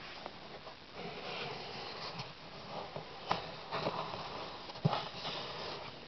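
A person breathing and sniffing close to the microphone, with rustling and a few soft knocks from handling the camera.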